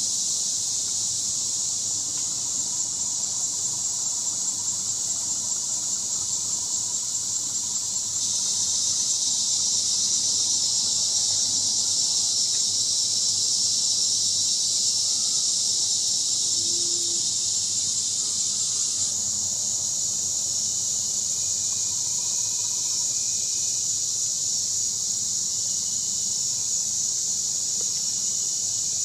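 Steady high-pitched chorus of insects droning without a break. It steps up in loudness about eight seconds in and drops back near nineteen seconds.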